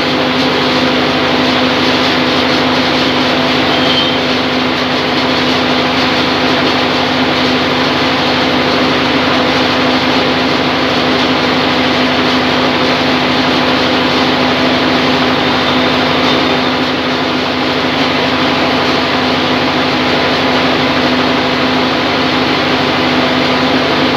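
Band sawmill running steadily: a loud, constant mechanical hum with a dense whirring noise over it.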